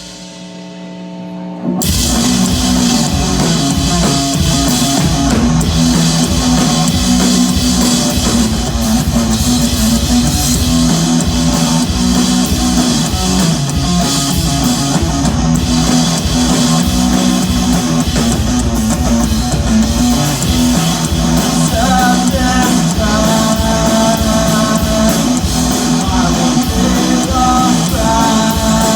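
Live rock band: a held note rings on its own for a moment, then about two seconds in the full band comes back in with loud guitars and drums and plays on. A higher melodic line comes in over it in the last several seconds.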